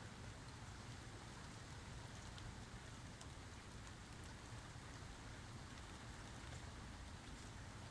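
Faint, steady rain falling, with scattered individual drops ticking through it.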